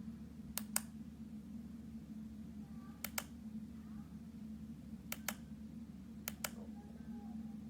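Four sharp double clicks, each pair a quick press-and-release, spaced a couple of seconds apart over a steady low hum.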